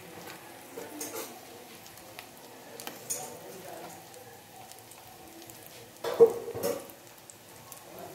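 A potato ring deep-frying in hot oil: a steady sizzle and bubbling with a few faint clicks, and a brief louder knock about six seconds in.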